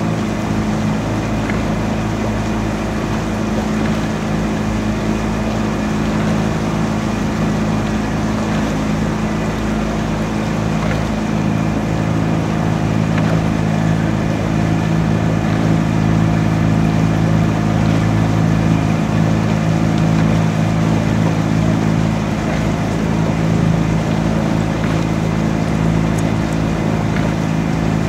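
Outboard motor of a coaching launch running steadily, heard from on board as a constant engine hum.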